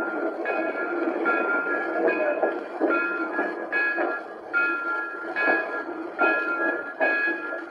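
A train running, with a steady rhythmic beat a little faster than once a second and pitched tones sounding with each beat.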